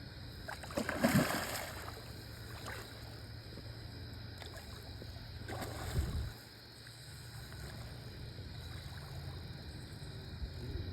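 Water splashing and sloshing, twice: once about a second in, the loudest, and again near six seconds. A steady low rumble sits under it and drops away just after the second splash.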